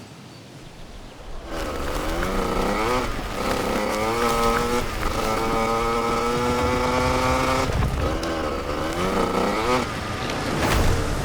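Hard enduro dirt bike engines revving and accelerating hard over a dense din of other bikes. Starts about a second and a half in, with the pitch rising in a few climbs, then holding steady for a few seconds before cutting off and rising again near the end.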